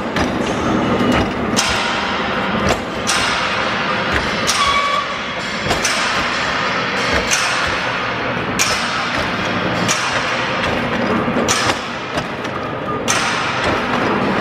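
Tree-root transplant wire mesh weaving machine running: a sharp knock about every one and a half seconds over a steady mechanical clatter.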